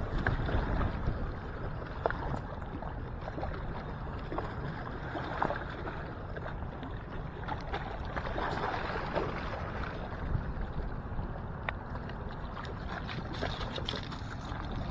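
Water lapping and splashing against shoreline rocks, with a low wind rumble on the microphone and a few scattered small clicks and splashes.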